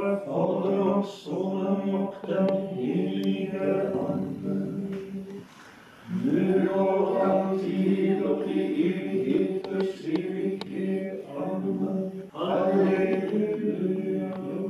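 A small group of voices chanting a psalm at monastic prayer, the words sung on long, steady notes, with a short pause about halfway through.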